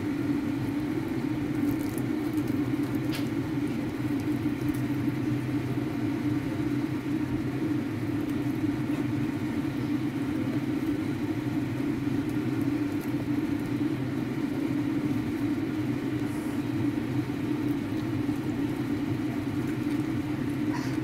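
A steady low mechanical hum that runs on without change.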